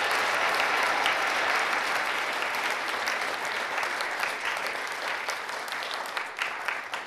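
Theatre audience applauding, the clapping thinning into separate claps and fading away near the end.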